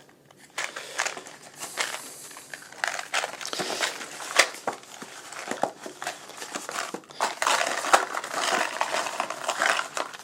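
Cardboard ammunition boxes being handled and opened: irregular crinkling and rustling with scattered clicks and knocks as the loose cartridges inside shift.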